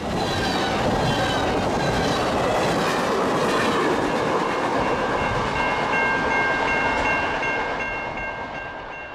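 Freight train rolling past a grade crossing, wheels clattering on the rails. From about halfway in, the crossing's warning bell rings in a steady repeating pattern over it, and everything fades out near the end.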